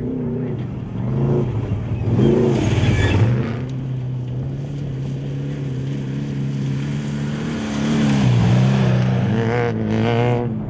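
Off-road race vehicle engines: a swelling rev or pass-by about two seconds in, then a steady engine drone that shifts pitch again near the end.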